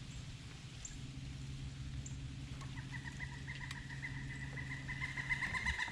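A woodpecker giving its laughing call: a long, rapid series of repeated notes that starts about halfway through and grows louder. Under it, a low steady hum that stops just before the end.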